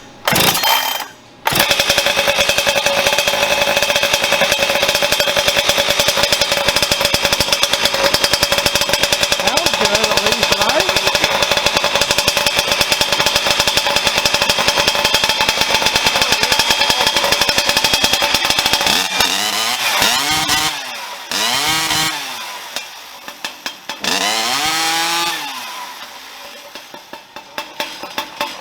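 Husqvarna 592 XP two-stroke chainsaw fitted with an expansion pipe, warming up from a cold start. It catches about a second and a half in and runs fast and steady for some seventeen seconds, is then revved up and down several times, and settles to a slow idle near the end.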